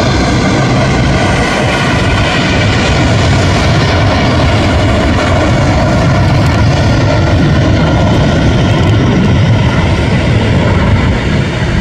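Embraer 190 jet airliner's twin turbofan engines at takeoff power during the takeoff roll and rotation: a loud, steady rushing noise with steady whining engine tones above it, easing slightly near the end.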